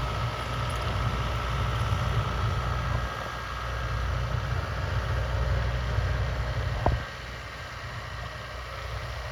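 Low rumble of a truck engine running, with a thin steady whine that fades about three seconds in. A single sharp knock comes about seven seconds in, after which the rumble drops and is quieter.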